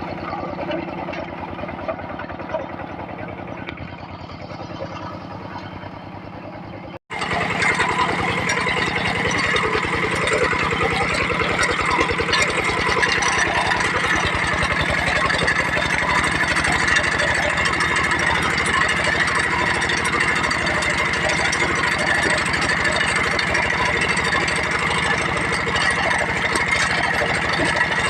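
Kubota diesel tractor engine running steadily. About seven seconds in the sound drops out for an instant and comes back louder and brighter.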